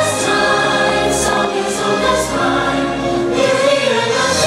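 Choral music from a fireworks show soundtrack: a choir singing held notes with instrumental backing.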